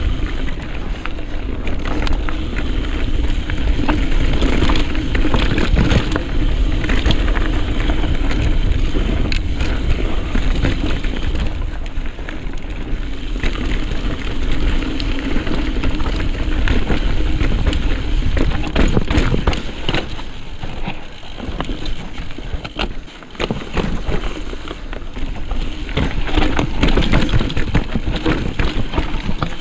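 Mountain bike riding over a rough, rocky dirt trail: tyres grinding over dirt and stones, with a constant clatter of sharp knocks and rattles from the bike over the bumps. The sound eases briefly a little past the middle before picking up again.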